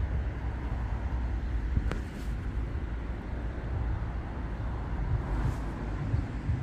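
Steady low outdoor rumble, unpitched and unsteady in level, with a single sharp click about two seconds in.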